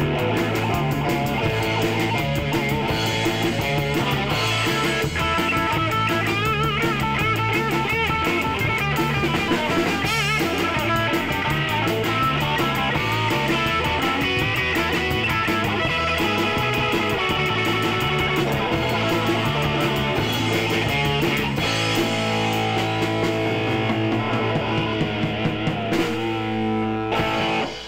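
Live rock trio of electric guitar, electric bass and drum kit playing an instrumental piece. About three-quarters of the way through the bass settles into long held notes, and the song winds down to sustained chords near the end.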